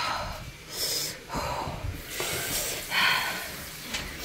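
A person's short, hissing breaths through the mouth, about five in a row over a few seconds. This is breathing against the burn of an extremely hot sauce.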